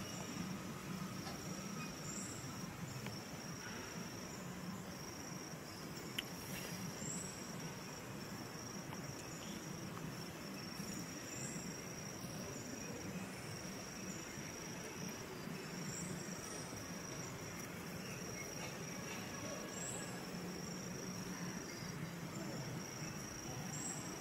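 Insects trilling in a steady high-pitched drone, in long phrases with short breaks, with a fainter short chirp higher up every four or five seconds.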